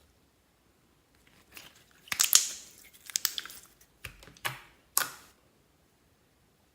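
Slime being worked by hand, giving several short crackling, crinkly bursts between about one and a half and five seconds in.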